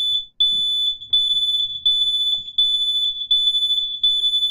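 Smoke alarm sounding: a loud, high-pitched electronic beep repeating in quick pulses, about three every two seconds, with only brief gaps between them.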